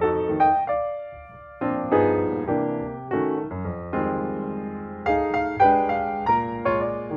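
Outro background music: a piano melody with struck notes and chords.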